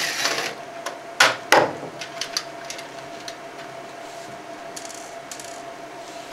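Sharp knocks and clicks of hands working the plastic housing of an HP Color LaserJet CP3525 laser printer during tear-down. There is a short burst at the start, two hard knocks about a second in, then lighter clicks and a brief rubbing scrape near the end, over a steady faint hum.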